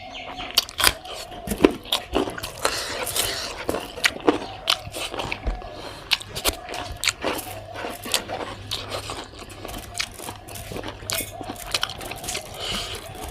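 A person chewing and biting spicy pork, with irregular sharp crunches several times a second.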